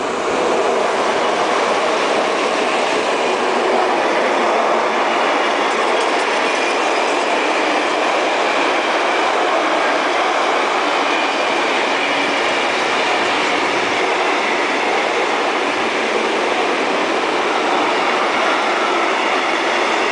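Diesel-hauled container freight train passing close by. The locomotives go by first, then a long line of container wagons rolls past with a steady rumble and rattle of wheels on rails.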